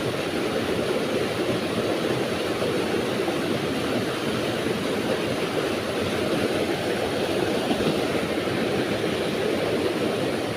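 Steady rushing noise at an even level, with no separate events.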